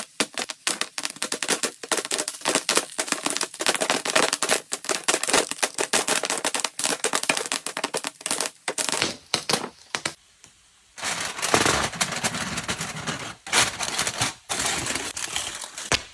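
Rapid, irregular clicking and tapping for about ten seconds, then, after a brief pause, a denser crackling, rustling noise.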